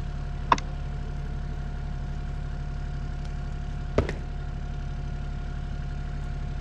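The engine of a small piece of earthmoving equipment idling steadily, with a sharp click about half a second in and a louder knock about four seconds in.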